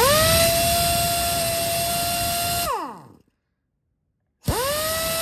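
Air impact wrench run free twice: at each trigger pull the air motor spins up with a quickly rising whine over a hiss of air, holds a steady whine for about two and a half seconds with no hammering, then winds down in a falling pitch when released. The second run starts near the end.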